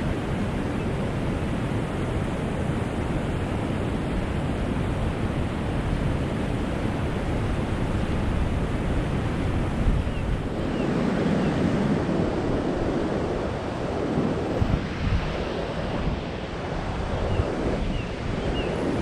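Steady rushing noise, heaviest in the low end, that shifts in texture about halfway through.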